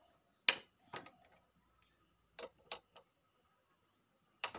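A socket wrench working a motorcycle's front brake caliper bolt, giving about half a dozen sharp metallic clicks at irregular spacing, some close together in pairs.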